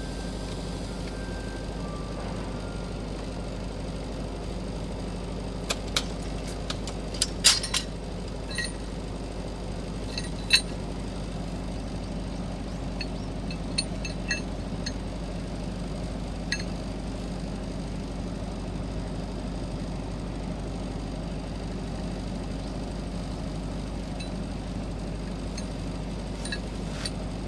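Steady machine hum with a few light metallic clinks and ticks scattered through the middle, the sharpest about seven and ten seconds in.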